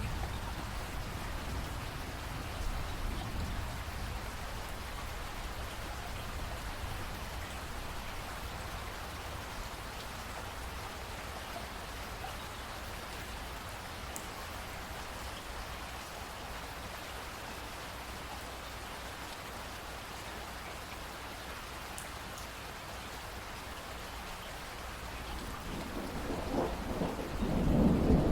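Steady rainfall with a low thunder rumble beneath it; a louder roll of thunder builds near the end.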